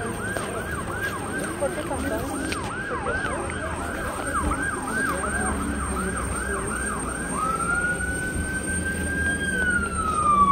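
Emergency vehicle siren, from an airport fire truck arriving: a fast yelp of about three cycles a second that switches about seven seconds in to a slow wail, rising and then falling.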